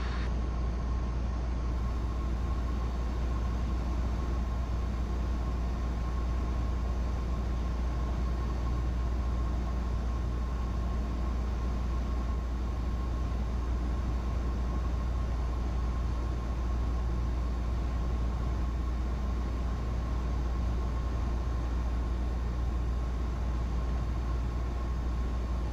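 Cessna 172's piston engine and propeller running steadily, heard as a constant deep drone inside the cabin, with a faint thin steady whine above it.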